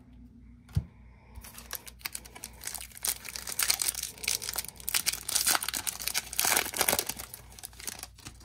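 Foil wrapper of a Topps baseball card pack crinkling and tearing as it is opened by hand, starting about a second in and busiest in the middle.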